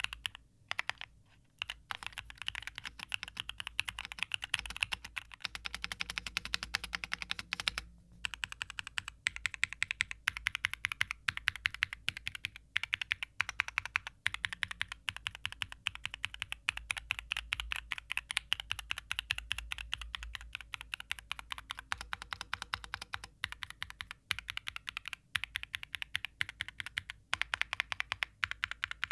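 Steady typing on a Wind Studio Sin65, an aluminium-framed 65% mechanical keyboard, in a sound test: a dense run of keystroke clacks with a couple of short pauses, near the start and about a third of the way in.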